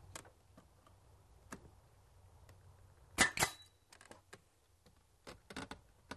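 Pneumatic nail gun firing a nail into wooden brick molding about three seconds in: a sharp double crack with a brief ring. A few lighter knocks follow near the end.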